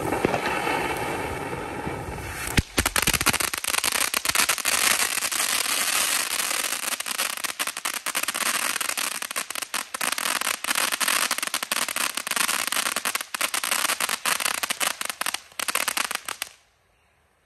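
Military tank fountain firework going off. It throws a hissing spray of sparks for the first couple of seconds, then from about two and a half seconds in breaks into a dense, rapid crackling that runs on until it cuts off suddenly near the end.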